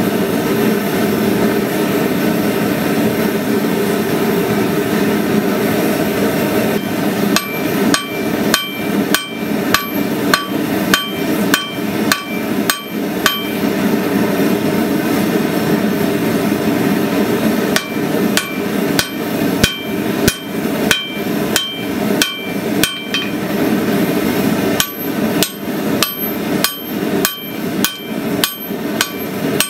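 Hammer blows driving a hot punch and drift through a glowing Damascus billet to open a hatchet eye, each strike ringing steel on steel. The blows come about two to three a second in runs, starting about seven seconds in, with a pause of several seconds in the middle, over a steady low rushing noise.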